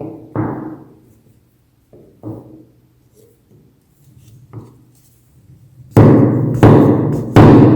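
Background music: a few spaced, booming drum hits over a low held tone, then a loud, driving percussive beat kicks in near the end.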